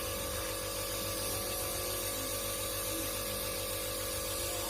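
Nebulizer compressor running with a steady, even hum.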